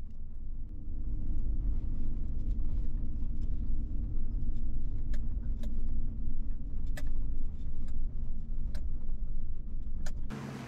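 2011 Chevrolet Silverado 1500's 5.3 L V8 pickup driving slowly on a dirt road, heard from inside the cab as a steady low rumble of engine and tyres. Sharp clicks and rattles come every second or so. The rumble cuts off just before the end.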